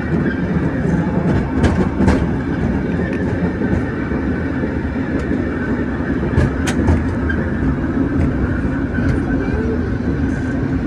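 San Francisco cable car running along its rails on California Street: a steady rolling rumble and rattle, with a few sharp metallic clicks, two about two seconds in and two more past six seconds.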